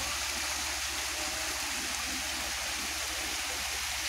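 Rushing water of a mountain stream or waterfall, a steady hiss.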